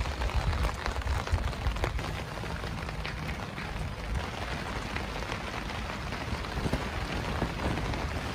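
Rain pattering steadily on tent fabric, many fine drop ticks over a low rumble.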